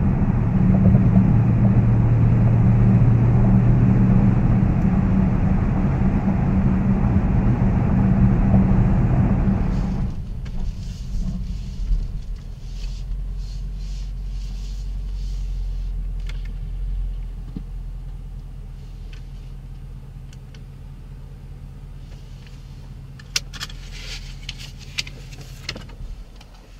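Cabin sound of a 2014 Range Rover Sport's supercharged 5.0 V8 at highway speed: a steady engine and road drone. About ten seconds in it cuts to a much quieter low hum at low speed that fades away, with a few sharp clicks of the interior controls near the end.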